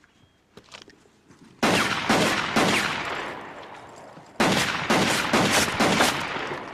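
Pistol gunfire: two rapid volleys of shots, the first about a second and a half in and the second past the middle, each shot sharp with a ringing tail that dies away.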